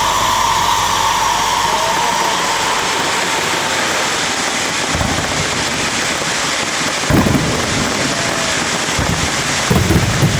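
Fireworks display: a dense crackling hiss, with deep booms about five and seven seconds in and a quick cluster of booms near the end.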